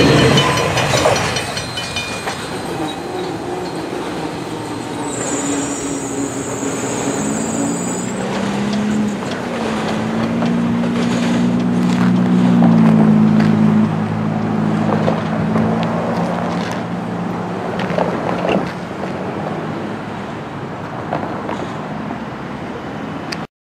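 Double-stack intermodal freight train rolling past and away: a steady rumble of wheels and cars with a low diesel locomotive drone that shifts in pitch partway through, a brief high squeal about five seconds in, and scattered wheel knocks later on. The sound cuts off suddenly near the end.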